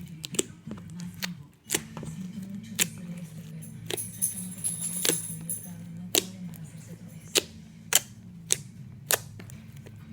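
Slime being played with, giving sharp pops and clicks at irregular intervals, roughly one every half second to second, over background music.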